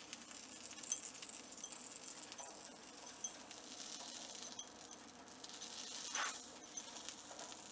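Melted butter sizzling and crackling faintly on a paratha on a hot griddle, with soft scrapes of a metal spoon spreading it across the surface.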